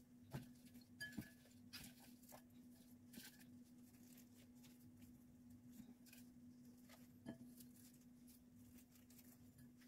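Faint scattered clicks and scratches of dry, stale baguette cubes being pushed against each other and the sides of a metal baking pan, the loudest about a second in and again near the end. A steady low hum runs under it.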